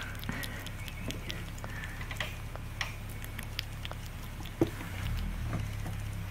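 Baby squirrel nibbling avocado held in fingers: many small, irregular clicks of chewing, with one sharper click about four and a half seconds in. Low rumble of the camera being handled near the end.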